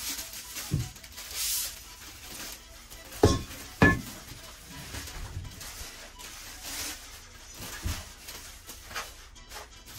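Plastic wrapping crinkling as black metal flat-pack frame parts are unwrapped and handled, with about four knocks of the metal frames against the wooden floor; the two loudest come close together a little past the middle.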